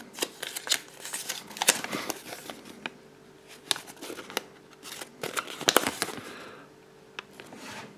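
A small folded paper leaflet being unfolded and handled: irregular crinkling and rustling with light crackles, coming and going throughout.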